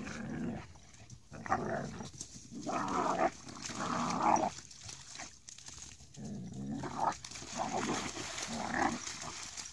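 A black German Shepherd and an American Staffordshire Terrier growling in repeated rough bouts as they wrestle in shallow water, with splashing.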